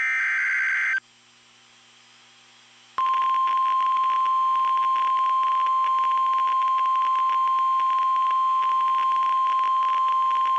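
Emergency Alert System warning signal: a second-long harsh digital SAME header data burst, then after about two seconds of quiet the NOAA Weather Radio 1050 Hz attention tone, one loud steady tone that announces a warning is about to be read.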